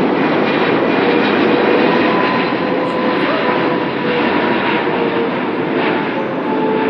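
Boeing 777-300ER's twin GE90-115B turbofans at approach power on final approach: a steady jet noise with a droning whine of fan tones.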